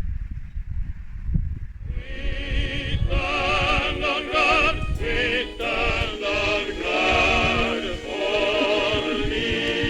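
A low rumble, then from about two seconds in, music with operatic singing, the voices held in long notes with wide vibrato.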